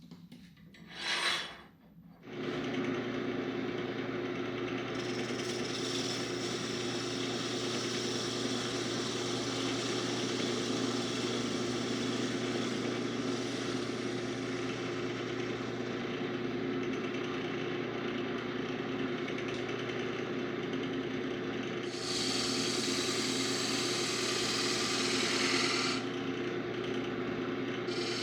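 An electric power tool starts a couple of seconds in and runs steadily on wood, with a constant motor hum. For a few seconds near the end it turns harsher and hissier as it works the wood harder.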